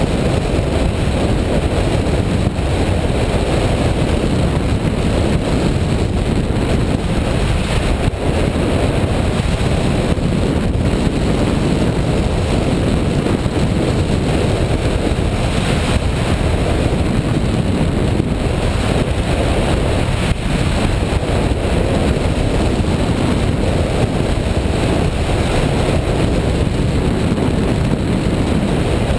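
Steady wind rush on the microphone of a camera mounted on a hang glider in flight, the airflow over the mic at flying speed.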